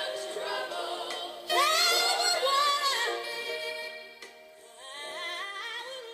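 Music with a woman singing long, wavering notes with vibrato, and no drum beat.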